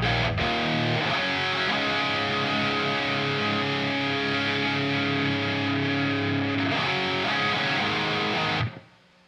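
Distorted electric guitar being checked at a band's sound check: sustained chords and held notes ring out, then stop abruptly about a second before the end.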